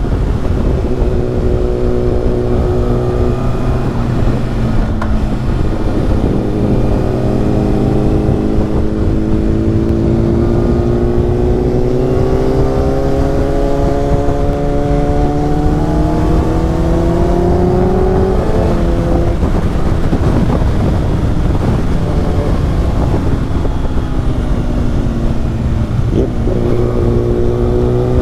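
2018 Kawasaki ZX-6R's 636 cc inline-four running through an Akrapovic slip-on exhaust under way. Its pitch climbs slowly for about fifteen seconds, drops sharply about two-thirds of the way through, and shifts again near the end.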